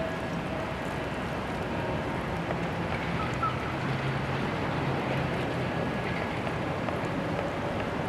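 Steady rush of a shallow stream flowing, with a faint low steady hum underneath.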